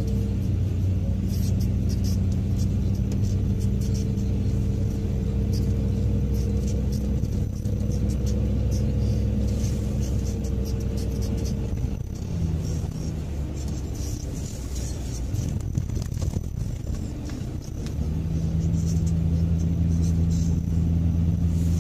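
Car being driven through city traffic, heard from inside the cabin: a steady low engine hum with tyre and road rumble. It eases off for a few seconds about halfway through, then comes back.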